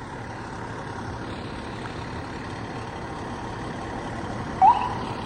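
Fire truck engine idling steadily. Near the end comes one short rising chirp from the truck's Whelen electronic siren.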